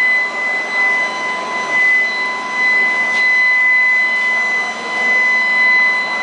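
Agni Electrical 175 kW, 300 kg induction melting furnace running under power: a steady, high-pitched electrical whine with a fainter tone an octave below, over a constant noisy hum.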